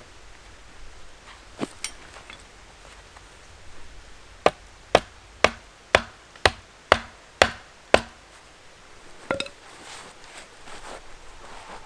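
Firewood being split with a run of eight sharp blows, about two a second, with a couple of lighter knocks before them and one after.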